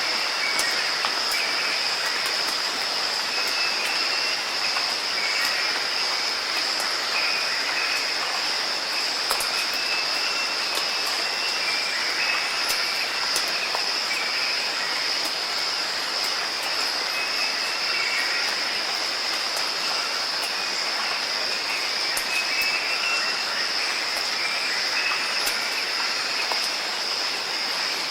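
Steady rain falling, with a constant high-pitched tone running through it.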